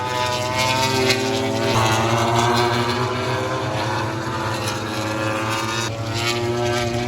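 MotoGP race bikes' engines running on the circuit, a loud steady drone whose pitch changes abruptly about two seconds in and again near the end.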